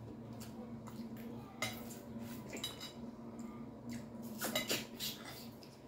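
Metal forks and spoons clinking and scraping against glass plates during a meal, a scatter of light clicks, over a low steady hum.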